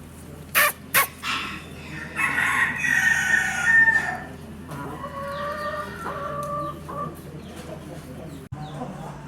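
Two sharp knocks in the first second, then an Aseel rooster crows, one long call of about two seconds. A second, lower crow follows about a second later.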